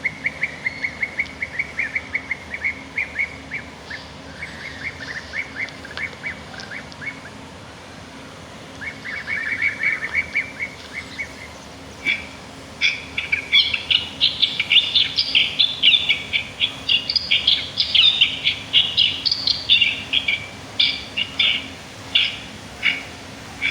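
Small songbirds chirping in quick runs of short notes. About halfway through, louder and busier chirping, higher in pitch, takes over.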